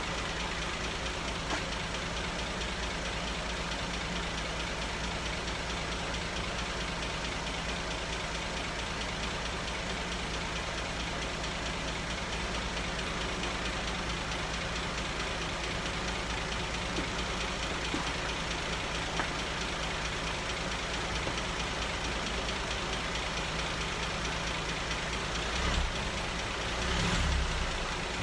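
Cadillac 3.6-litre V6 idling steadily on its first run after a total engine rebuild, with a brief louder swell near the end.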